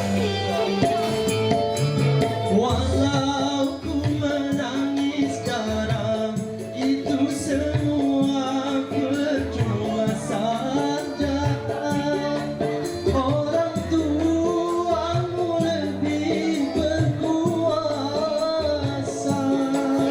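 A song: a singer's long, wavering melody over instrumental accompaniment with a steady beat.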